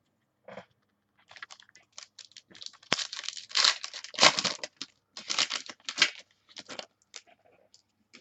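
Crinkling and tearing of a trading-card pack's foil wrapper, a run of rustling bursts with a sharp click about three seconds in, loudest in the middle.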